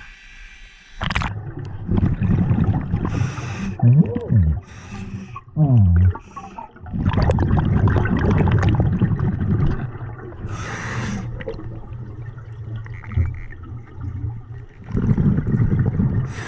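Underwater audio of a scuba diver: water gurgling and the rush of exhaled regulator bubbles, with a couple of short gliding squeals about four and six seconds in.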